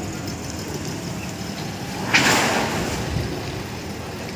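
Steady road-traffic rumble, with a sudden loud hiss about two seconds in that fades over about a second.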